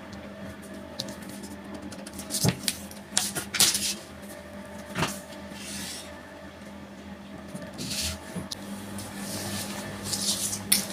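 Pattern-drafting tools handled on paper: a tape measure, marker and plastic ruler set down and moved across the sheet, giving a few scattered taps and clicks and short paper rustles over a steady low hum. Near the end, fabric rustles as a shirt is brought over the table.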